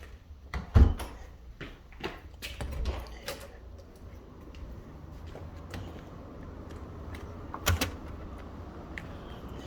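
A door being worked: a loud knock about a second in, then a run of clicks and rattles, and a second sharp knock near the end, with a steady hiss between.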